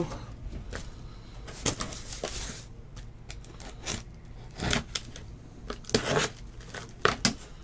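Packaging on a case of trading-card boxes being torn open and handled: a few short bursts of tearing and rustling with scattered clicks.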